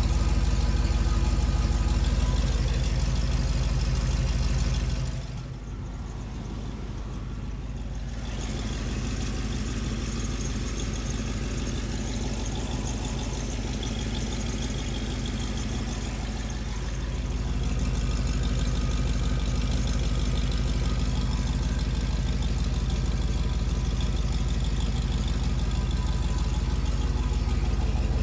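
Dodge Durango's V8 idling steadily through a Magnaflow exhaust with aftermarket headers, a deep even exhaust note. It turns quieter and duller for a few seconds about five seconds in, then comes back.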